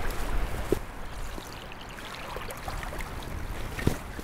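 Shallow stream water running and trickling, with a couple of short splashes in the water as a hooked brook trout is landed by hand. A low rumble fades out about a second in.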